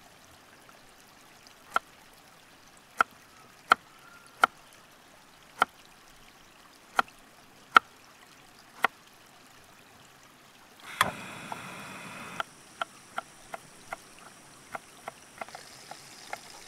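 Small knife cutting carrot on a wooden log chopping block: eight sharp, separate chops over the first nine seconds. About eleven seconds in, butter starts sizzling in a hot frying pan, loudest at first and then a steady hiss, with quicker knife chops on the block over it.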